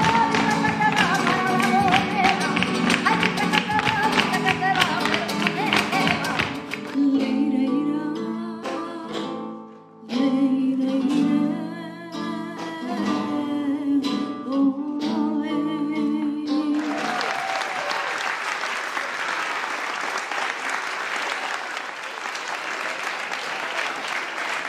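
Live flamenco: cante singing over guitar with sharp percussive clicks at first, then a sparser passage of held, wavering sung notes over the guitar. About two-thirds of the way in the music ends and an audience applauds.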